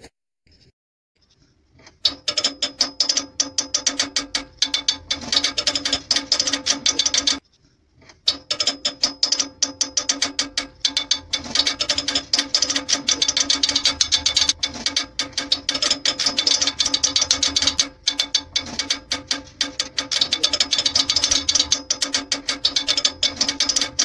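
Background music with a fast, dense clicking beat over a few steady tones. It starts after about two seconds of silence and drops out briefly about a third of the way in.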